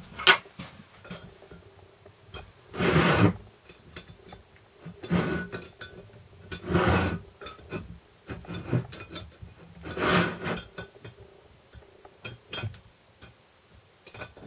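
A small spanner tightening the nuts on the studs of a Land Rover Series 3 transfer box front output housing: about five short metallic rasps of the spanner turning the nuts, with small clinks of steel on steel between them.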